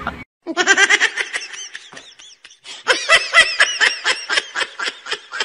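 A person laughing hard in quick, high-pitched bursts, in two bouts with a short break in the middle.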